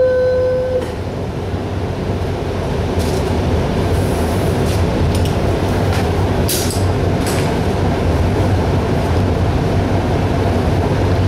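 Steady, loud machinery drone with a low hum from the paint booth's running equipment. A whistling tone stops about a second in, and a few faint clicks sound midway.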